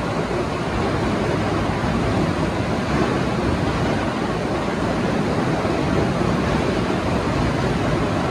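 Yongwon SM400 Super Cone crusher running under load, crushing rock fed from the conveyor: a steady, even mechanical noise with no distinct knocks.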